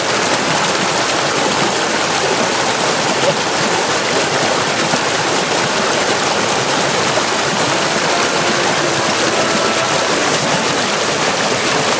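Steady rushing of stream water flowing over rocks.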